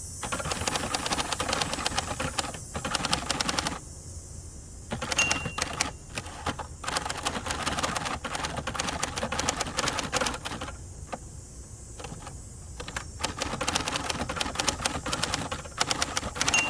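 Typing on a 1967 Hermes 3000 manual typewriter: quick runs of clacking keystrokes, broken by short pauses about four seconds in and again about eleven seconds in.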